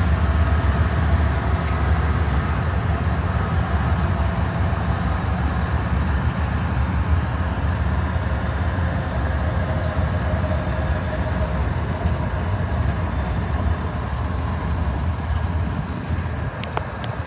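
Steady low rumble of road and engine noise heard from inside a moving car, with a few sharp clicks near the end.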